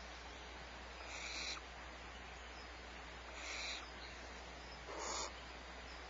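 Young barn owl giving its rasping, hissing begging call (the 'snore' of barn owl nestlings and fledglings), three harsh hisses of about half a second each, roughly two seconds apart, the third lower and fuller, over a steady low electrical hum.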